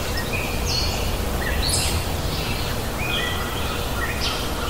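Outdoor ambience: a steady low rumble under short, high-pitched chirping animal calls, about two a second.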